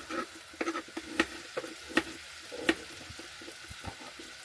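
Kitchen utensils knocking while food is prepared: about eight irregular sharp clacks, each with a short ringing tone, over a faint steady hiss.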